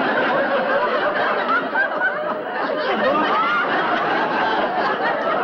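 Sitcom audience laughter: many people laughing at once, without a break.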